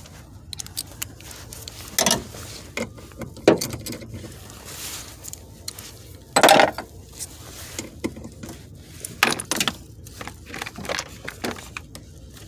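Metal hand tools clinking and clattering as they are handled, in irregular knocks with several louder clanks spread through.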